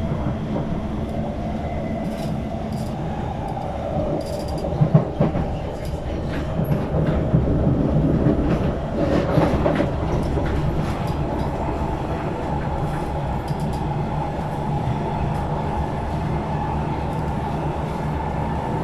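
SMRT metro train heard from inside the carriage, running between stations with a steady rumble. A few wheel knocks stand out about five seconds in and again around nine to ten seconds in.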